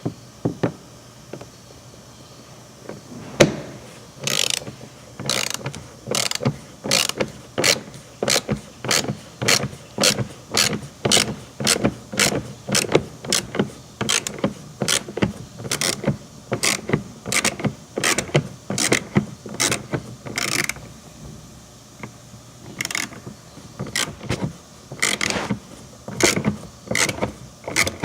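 A 3/8-inch hand ratchet with extension and T30 Torx socket being swung back and forth to loosen the T30 fasteners on a truck's cab air filter cover: a burst of ratchet clicks on each return stroke, about two a second. The clicks start a few seconds in and pause briefly near the end before resuming.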